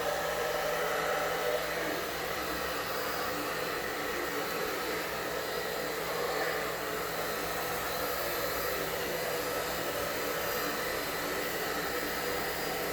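Handheld hair dryer blowing warm air steadily.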